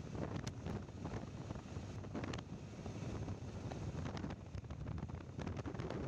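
Wind buffeting the microphone of a moving motorcycle at highway speed, a steady low rumble with a few brief clicks.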